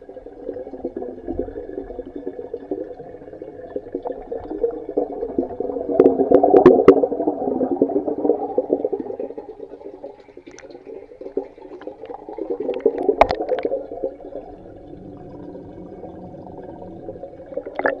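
Muffled underwater sound picked up by an Eken H9R action camera held under water: a dull churning of water that swells twice, with a few sharp knocks against the camera.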